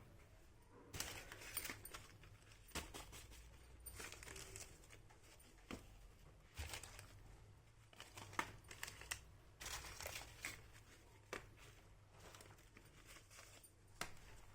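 Faint crinkling and rustling of packaging, with small clicks, as a mini doll kit is unboxed by hand; the sounds come in irregular bursts.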